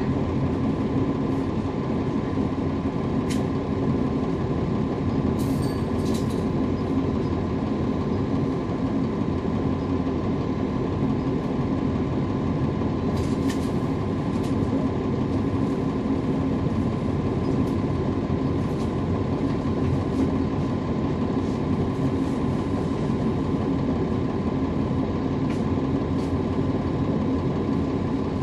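A 2011 NABI 40-SFW transit bus's Cummins ISL9 diesel engine, heard from on board, running at a steady, unchanging pitch with a faint steady whine above it. A few faint small clicks or rattles come through now and then.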